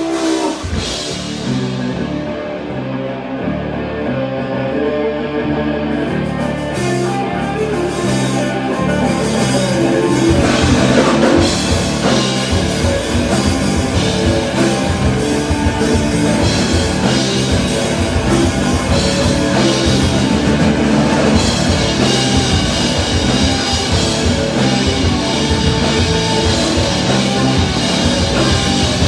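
Rock music without vocals, with a drum kit; it fills out and gets busier about ten seconds in.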